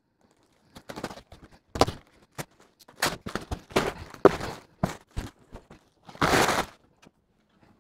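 A cardboard box being cut open with a knife and handled: scattered knocks and clicks, with one longer scraping rush about six seconds in.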